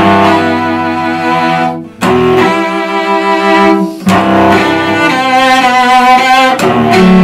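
Solo cello bowed in a slow phrase of long sustained notes, a new note starting about every two seconds, with vibrato on the notes in the middle. Played with relaxed, lowered shoulders, to demonstrate the freer tone that comes without tension.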